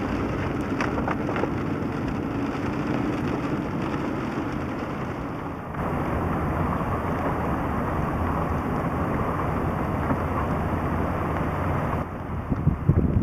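Steady road and engine noise heard from inside a moving vehicle on a wet road, getting louder about six seconds in.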